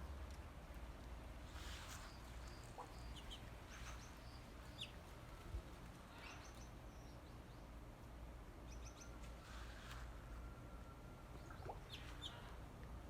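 Wild birds chirping in short, scattered high calls, faint over a low steady background rumble.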